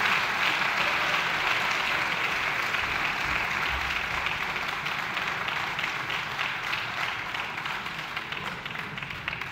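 Applause from a large seated gathering, a dense patter of many hands clapping that slowly dies away toward the end.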